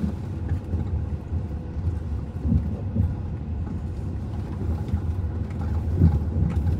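Car driving slowly on a rough dirt track, heard from inside the cabin: a steady low rumble of engine and tyres, with a few louder jolts as it rides over bumps.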